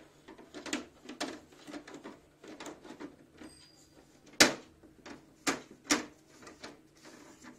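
Plastic clicks and knocks as the top-mounted air filter and front grille of a Samsung split AC indoor unit are pressed back into place. There is one loud snap about four and a half seconds in and two more just after it.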